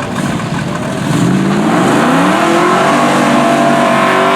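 Drag-racing cars accelerating hard, with the engine note climbing steeply from about a second in and still rising near the end.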